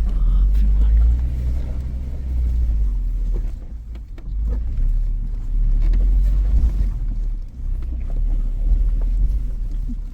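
Suzuki Jimny driving slowly over a rocky off-road track: a low, uneven rumble with scattered knocks and rattles as the wheels go over stones.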